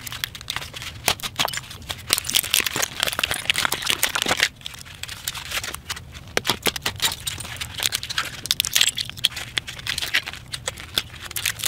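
A laptop battery pack's cracked plastic casing being pried and pulled apart by hand to free the 18650 cells inside: a busy run of sharp plastic snaps, clicks and crackles.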